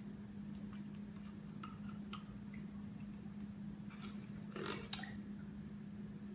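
Condensed cream of mushroom soup sliding out of its can into a pot: a few faint taps, then one squelching plop about five seconds in. A steady low hum runs underneath.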